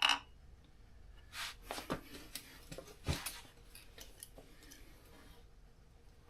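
Scattered sharp clicks and short light clatters of hand tools and small metal parts being handled during lawnmower engine reassembly, stopping about five seconds in.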